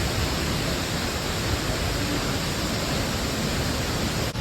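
Steady roar of a large waterfall, an even rushing noise without a break, with a brief dip near the end.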